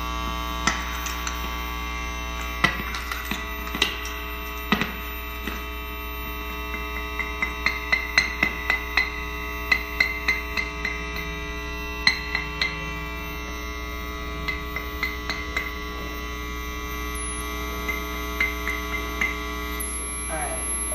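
A homemade contact microphone's output: a steady electrical hum and buzz with many overtones, the buzzing interference of faulty wiring in its casing, with taps and knocks on the microphone coming through as sharp clicks, in clusters at several points.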